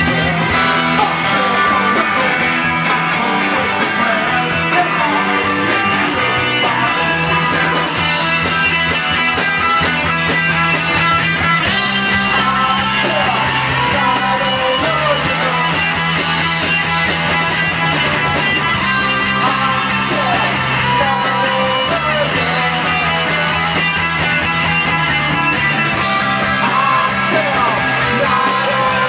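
A live rock band plays loudly and steadily: electric guitar, bass guitar and drums, with a man singing over them in places.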